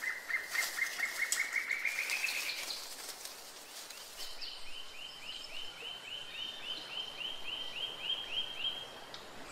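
Birds calling in forest ambience: a fast run of short repeated notes that climbs a little in pitch and quickens, then after a short pause a higher, slower series of evenly spaced notes, about four a second.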